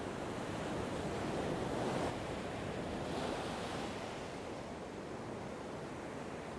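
Ocean surf breaking and washing up the sand, loudest about two seconds in, followed by a higher hissing wash a second or so later before settling back to a steady roar.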